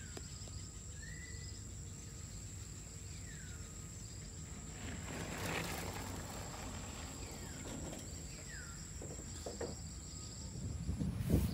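Outdoor ambience: a steady high-pitched insect drone, and a bird giving a few short sliding whistles, mostly falling in pitch, over a low rumble of wind noise. About halfway through there is a brief rushing swell of noise.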